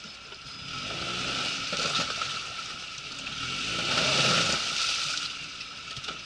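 Suzuki Escudo SUV's engine revving up twice as it drives through a shallow stream, with water splashing and tyres churning; the second surge, around four seconds in, is the louder.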